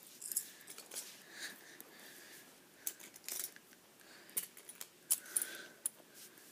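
Irregular light clicks and clinks of small hard objects being handled.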